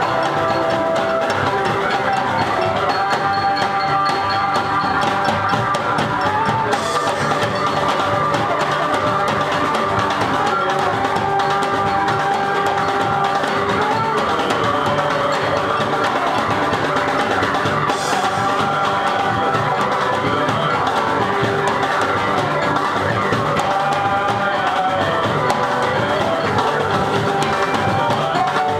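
Live band music: a trombone playing melody over drums and percussion.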